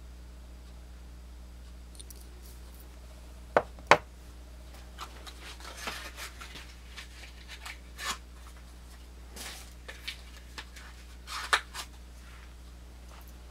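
Small 58 mm Swiss Army knives being handled: two sharp clicks close together about three and a half seconds in, then scattered lighter clicks and rubbing, with another sharp click near the end.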